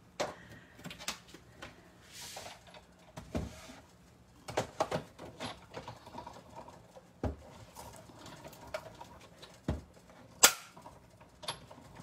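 Plastic cutting pads and a steel die being stacked and fed through a hand-cranked Sizzix die-cutting machine: irregular plastic clicks, clacks and knocks, with a short scraping hiss about two seconds in and the loudest sharp click near the end.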